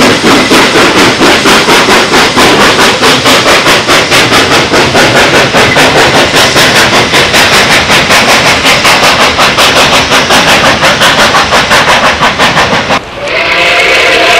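Nickel Plate Road 2-8-4 Berkshire steam locomotive No. 765 working hard, its exhaust beating in a fast, even rhythm of about five chuffs a second. Near the end this stops abruptly and a steam whistle starts blowing a steady chord of several notes.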